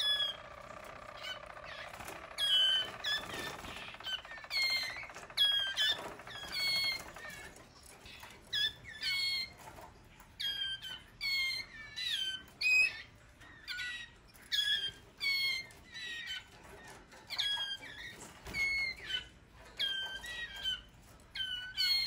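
Male roller canaries in a cage giving a run of short, harsh calls, about one a second, each with a quick sweep up or down in pitch: sparring calls between rival males.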